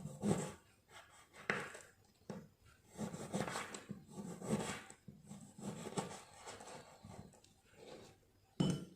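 Knife slicing limes on a cutting board: irregular knocks of the blade hitting the board about once a second, with short scraping sounds between them, the sharpest knock near the end.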